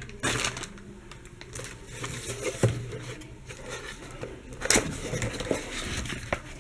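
A small cardboard box and its paper contents being handled: scattered light taps and clicks with soft rustling.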